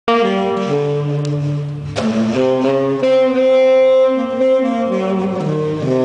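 Yanagisawa tenor saxophone playing a slow ballad melody in long held notes, over a chordal backing accompaniment.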